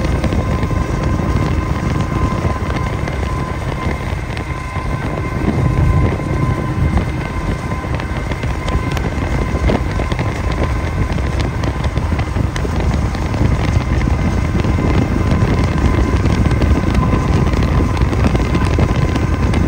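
Steady low rumble and wind noise on the microphone from a moving vehicle pacing a freight train, with faint steady high whining tones throughout.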